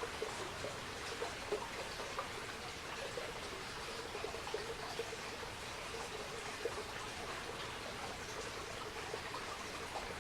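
Wood fire burning with a steady crackle and many small irregular pops.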